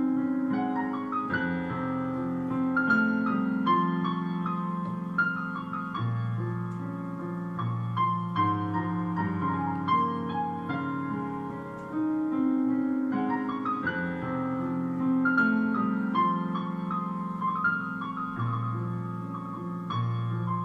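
Background piano music: a gentle melody over held low chords, its phrase coming round again about every twelve seconds.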